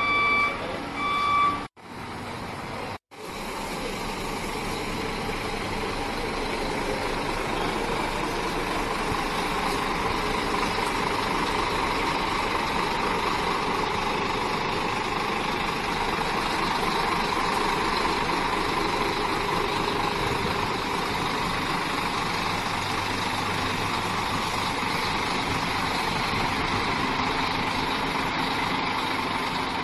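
A Scania coach's reversing alarm beeping for the first second or so, then, after two brief dropouts, the coach's diesel engine running steadily as it manoeuvres, growing gradually louder as it comes past.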